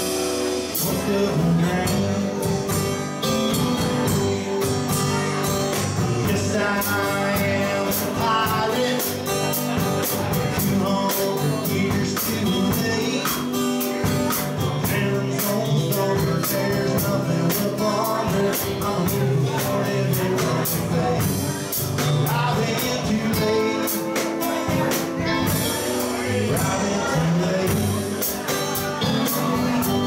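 Live country-rock trio playing a slow cover song: strummed acoustic guitar, electric lead guitar and drum kit, with male vocals.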